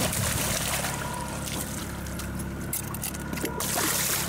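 A hooked pink salmon splashing at the water's surface alongside the boat, over the steady hum of the boat's engine.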